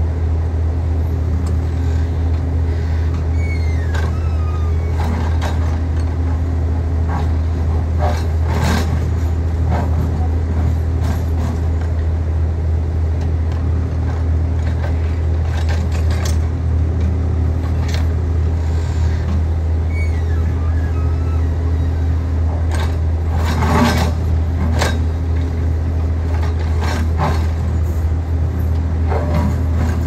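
Backhoe loader's diesel engine running steadily with a deep, even drone. A few sharp knocks come through over it.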